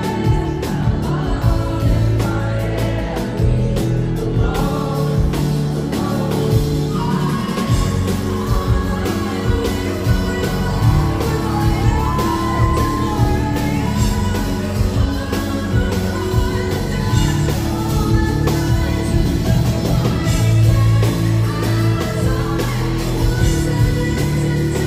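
Live pop band with electric guitars and keyboards playing behind a woman singing lead into a microphone, heard from among the concert audience.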